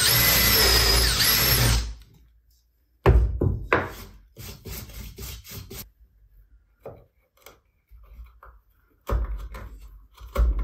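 Cordless drill running as it bores an 8 mm hole through a wooden drill-guide block, with a steady motor whine that stops about two seconds in. A second later comes a loud clatter as the drill is set down on the workbench, then scattered light knocks and rubbing as the drill bit and the wooden guide are handled.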